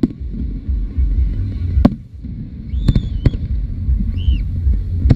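Fireworks display: aerial shells bursting with several sharp bangs over a continuous low rumble of explosions, with two short whistles near the middle.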